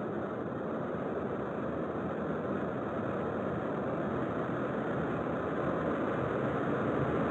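A steady engine-like rumbling rush with no clear pitch, slowly growing louder.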